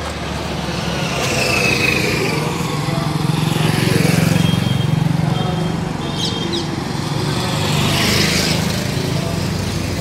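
Small motorcycle engine running steadily, swelling louder around the middle. A few short high chirps come about six seconds in.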